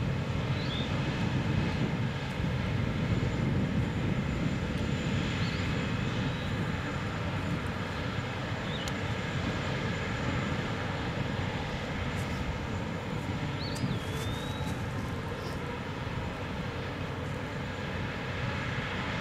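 Heavy machinery on a natural gas drilling pad running as a steady low rumble carried across the valley, with a few brief high chirps over it.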